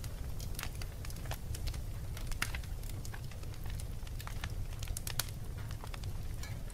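Fire crackling in a fireplace: irregular sharp pops and snaps over a low, steady rumble.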